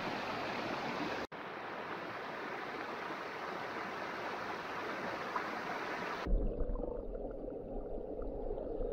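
A forest stream's water rushing in an even, steady wash. About two-thirds of the way through, it changes abruptly to a duller, muffled sound with a low rumble underneath.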